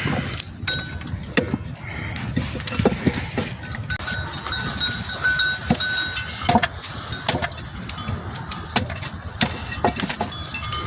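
Flock of sheep with bells on the animals clanking, a scatter of irregular clinks and knocks, and a held ringing tone for a couple of seconds about halfway through.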